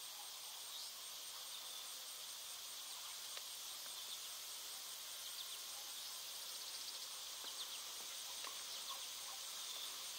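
Steady high-pitched chorus of crickets and other field insects, with a thin constant whine on top and a few faint short chirps and clicks scattered through.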